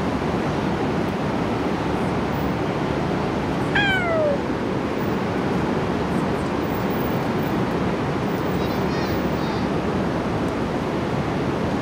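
A Singapura cat gives a single short meow about four seconds in, falling in pitch, over a steady rushing background noise.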